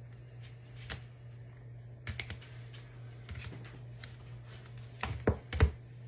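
Sports trading cards being handled and stacked on a table: scattered light clicks and taps, with two sharper knocks about five seconds in, over a steady low hum.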